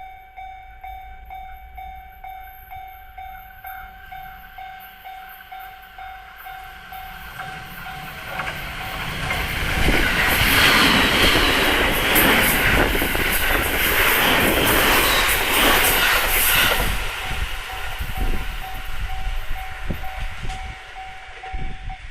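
Japanese level-crossing warning bell ringing in a rapid, steady repeat while a 209 series electric commuter train passes over the crossing. The train rises to a loud rush of wheels with rail-joint clatter for about eight seconds in the middle, then fades, the bell still ringing.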